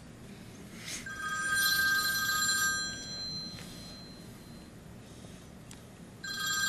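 Smartphone playing an old-fashioned telephone bell ringtone: one ring lasting nearly two seconds starts about a second in, and a second ring starts near the end.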